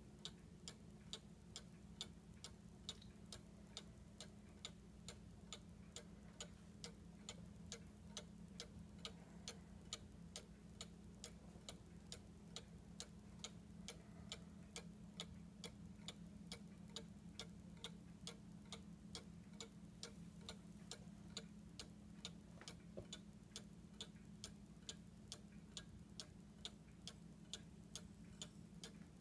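8-day mechanical cuckoo clock ticking faintly and evenly, about two ticks a second.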